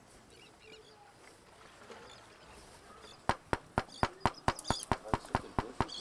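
Wooden mallet striking a carving chisel into a limewood bird blank, sharp knocks in an even rhythm of about four a second, starting about three seconds in. Before that, faint outdoor background with a few faint bird chirps.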